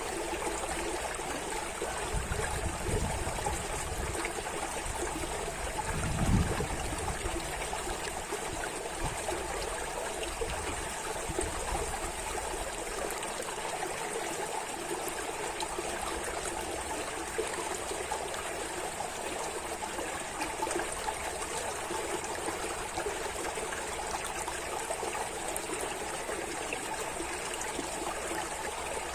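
Running water in a steady, continuous trickling flow. There are low rumbles a couple of seconds in and a brief, louder low thump about six seconds in.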